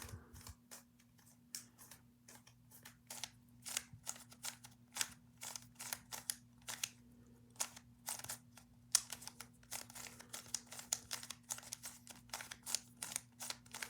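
Rubik's Cube faces being turned in quick succession: a rapid, irregular run of small plastic clicks and clacks, several a second. A faint steady hum runs underneath.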